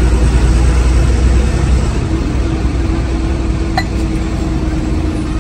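Bus running on the road, heard from inside the cabin: a steady drone of engine and road noise with a deep rumble that eases about two seconds in. A light clink sounds twice, close together, about four seconds in.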